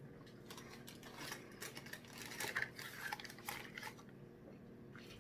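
Crackling, clicking handling noises of fast food and its wrappers or containers close to the microphone, a busy cluster peaking around the middle, over a faint steady low hum.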